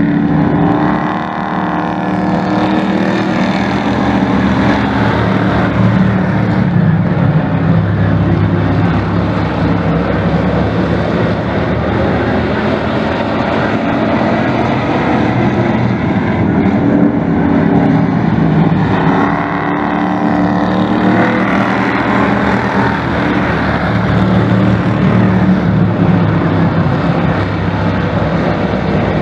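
Pack of dirt-track race trucks running laps, engines revving and easing through the turns. The sound swells as the field passes close, about a second in and again about twenty seconds in.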